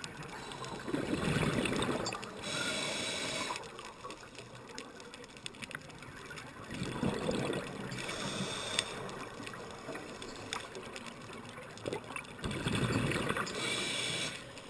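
A scuba diver breathing through a regulator underwater, heard through a GoPro's waterproof housing: three breaths about six seconds apart, each a gurgling rush of exhaled bubbles followed by a high hiss as the regulator delivers air.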